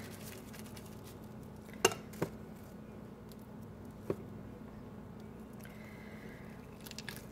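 Quiet handling of a soft, crumbly cheese mixture being scooped with a plastic spoon and pressed onto plastic wrap, with a few light knocks about two and four seconds in, over a low steady hum.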